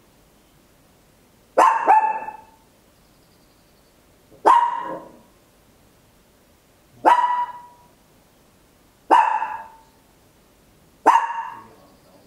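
A Papillon barking: a quick double bark, then four single barks about two seconds apart, each sharp at the start and fading quickly.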